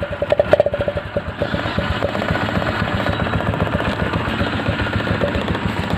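Motorcycle engine running with its exhaust piped into a water-filled plastic drink bottle, the exhaust gas bubbling out through the water in a rapid, even pulsing rattle.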